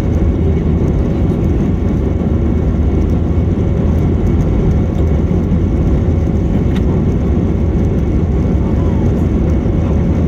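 Steady cabin noise inside an Airbus A321 in flight: the even, low rumble of the engines and airflow, holding a constant level, with a faint steady hum above it and one small click about seven seconds in.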